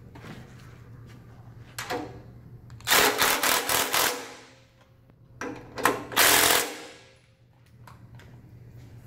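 Ridgid cordless impact driver with a 9/16 socket hammering a 3/4-inch bolt into the steel lift frame, in two bursts of about a second each, the first about three seconds in and the second about five and a half seconds in.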